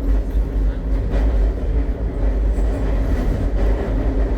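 Madrid Metro train running, heard from inside the carriage: a steady, loud low rumble of wheels on rails and running gear, with a faint steady high whine.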